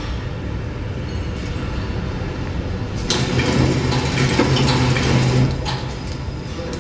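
Horizontal pillow (flow-wrap) packing machine with a steady mechanical hum. About three seconds in a click brings a louder run with a low hum and rattling for two or three seconds, then it drops back.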